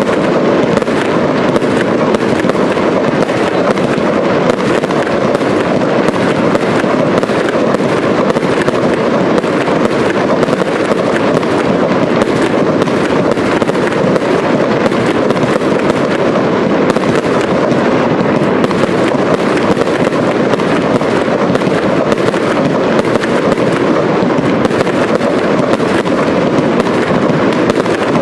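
Aerial fireworks barrage: shells and rising comets going off in quick succession, a dense, unbroken run of bangs and crackle that blends into one continuous loud rumble.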